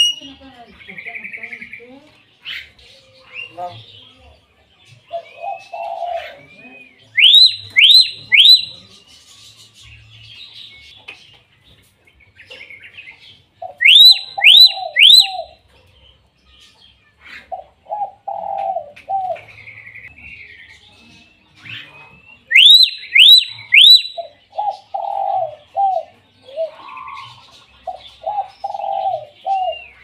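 Hill myna calling: loud runs of three sharp, rising whistles, about a second and a half long and coming about every seven seconds, with softer, lower calls in short runs between them.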